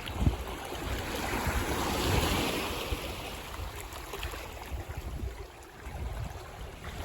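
Ocean waves breaking on a beach: a wash of surf swells to a peak about two seconds in and then recedes, with scattered low thuds underneath.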